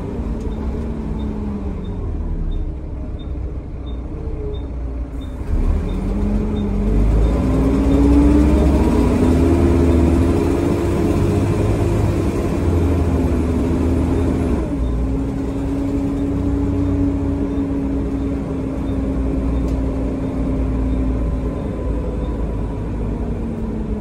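Volvo B7TL double-decker bus's six-cylinder diesel engine and ZF automatic gearbox heard from the upper deck, the engine note climbing and dropping as the bus pulls through its gears, then holding steadier. The exhaust is blown.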